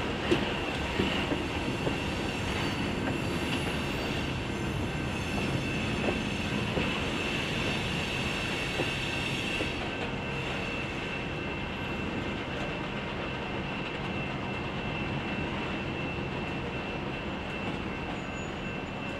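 Freight cars rolling slowly past on steel wheels, with a steady rumble and a thin, steady high-pitched wheel squeal over it. A few sharp clanks come in the first second.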